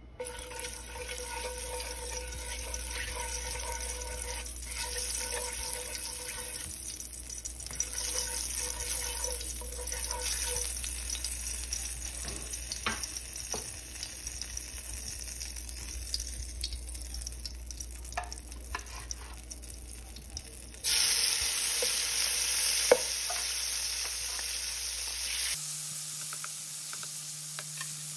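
Cooking oil sizzling and crackling softly in a nonstick frying pan. About 21 seconds in, the sizzle turns suddenly louder and fuller, with one sharp click soon after. By the end, raw shrimp are frying in the oil.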